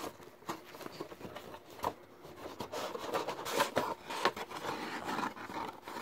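Hands handling a cardboard display case and the shrink-wrapped boxes inside it: irregular scrapes and light clicks of card and plastic, busier in the second half.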